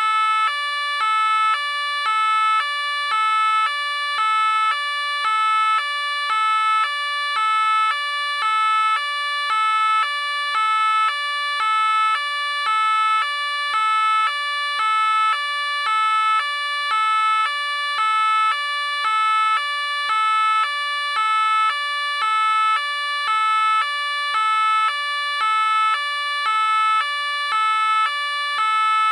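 French police car siren sounding its two-tone call. It alternates evenly between a higher and a lower note, about one pair of notes a second, without a break.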